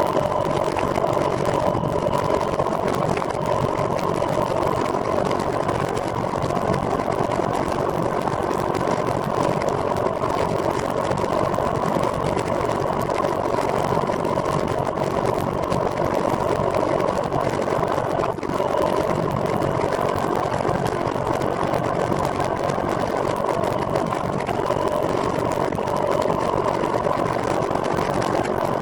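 Steady running noise of a vehicle under way, a continuous hum with a couple of held tones over a rushing haze, with a brief dip about two-thirds of the way through.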